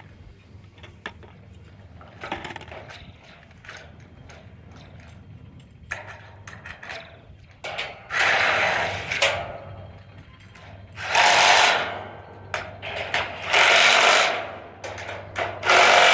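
Light metallic clicks of bolt hardware being handled, then a power tool running nuts onto the rack's bolts in about four short bursts, starting about eight seconds in.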